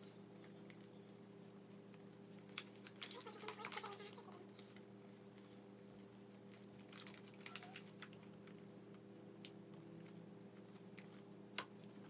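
Near silence: room tone with a steady low hum and a few faint clicks and crackles of handling, in clusters about three seconds in and again about seven and a half seconds in, and one sharper click near the end.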